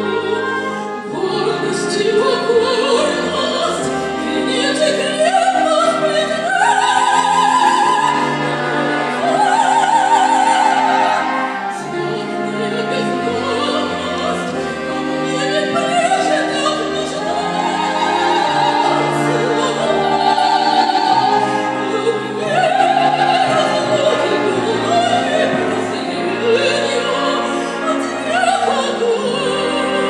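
Female operatic voice singing with strong vibrato, accompanied by a wind band of flutes and brass. The melody climbs to several long, held high notes.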